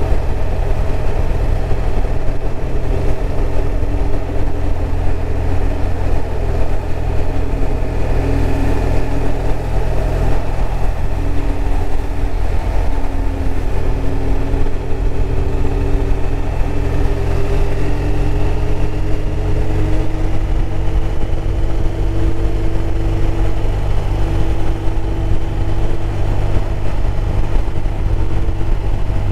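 BMW R1200RT's boxer-twin engine running on the move, heard from the bike over a steady low rumble. The engine note holds, shifting in steps, then climbs slowly through the second half as the bike gathers speed.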